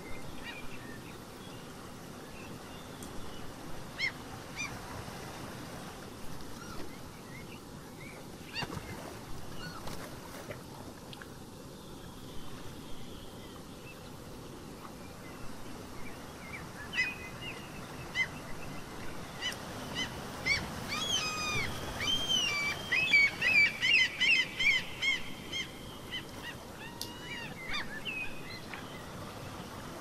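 A steady wash of ocean surf with birds calling over it: scattered single calls at first, then a quick run of repeated calls about two-thirds of the way in, the loudest part.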